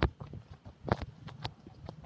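Footsteps on a hard walkway at walking pace: four sharp steps.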